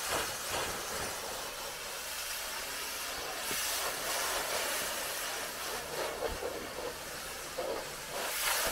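Pressure washer jet spraying water onto a car's bodywork: a steady hiss of spray.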